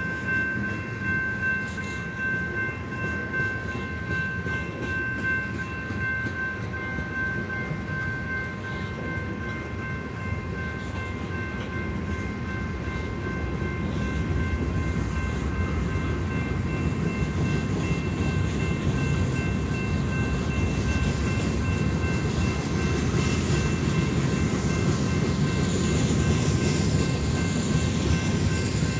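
A long freight train's cars rolling past at a level crossing: a steady rumble with the clatter of wheels on the rail joints, getting louder about halfway through. A steady high-pitched ringing sits above it.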